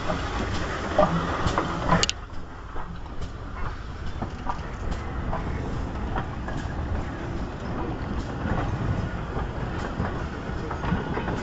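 GWR 2800 class 2-8-0 steam locomotive and its train rolling past on the rails: a steady low rumble with scattered wheel-on-rail clicks and knocks.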